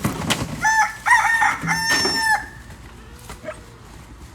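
Rooster crowing once, a loud call of several held notes lasting nearly two seconds, starting about half a second in.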